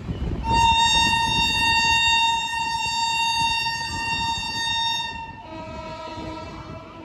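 Train horn sounding one long, steady blast of about five seconds, then a lower, fainter horn note for a second and a half, over the low rumble of the moving train.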